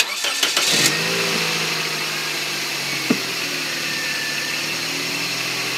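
Car engine cranked by its starter running off a small ultracapacitor boost pack instead of a battery. It catches within about a second, with no hesitation, and settles into a steady idle, heard close up from inside the engine bay.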